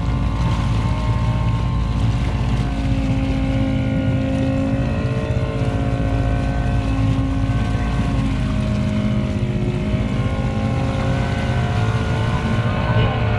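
ATV engine running steadily, its pitch shifting slightly now and then as the throttle changes.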